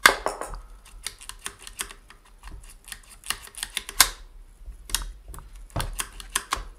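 Irregular clicks and clacks of metal parts inside an opened Singer 401A sewing machine as a stuck part is worked back and forth by hand, the sharpest click coming near the start and another about four seconds in. The part stays stuck, seized from long going without oil.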